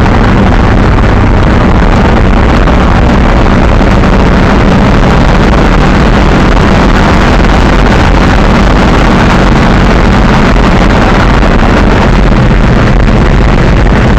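Monster truck engine running steadily under way, heard loud from inside the cab along with broad rumbling road and wind noise.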